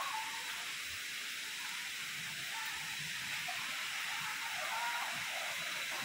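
Steady hiss of rushing water from a waterfall, an even rush without breaks.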